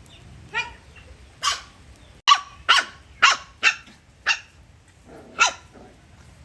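A dog barking: about eight short barks at uneven intervals, the loudest bunched together in the middle.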